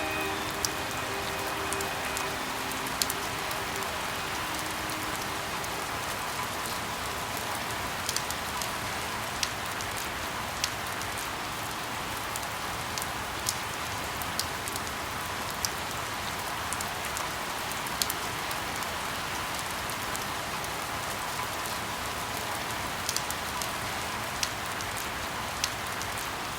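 Steady rain falling, a continuous hiss with scattered sharp drip ticks.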